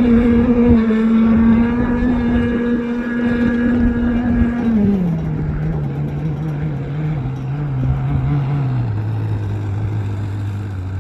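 RC thunder boat's motor running at steady high revs, then throttled back, the pitch dropping in steps about halfway through and again near the end.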